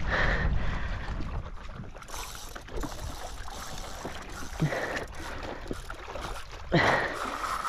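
Water rushing and slapping along a paddleboard's hull as a hooked fish tows the board, with wind buffeting the microphone in the first couple of seconds. A few sharper slaps stand out, the loudest near the end.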